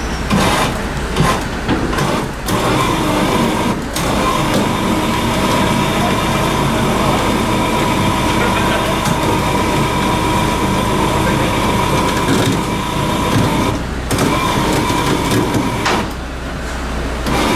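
A motor running steadily with a constant high whine over a low hum, stopping briefly about two-thirds of the way through, with indistinct voices.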